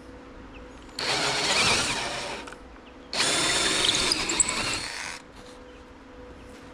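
Electric drill boring through the epoxy-filled bow of a wooden kayak in two bursts of about two seconds each, each starting abruptly and winding down at the end.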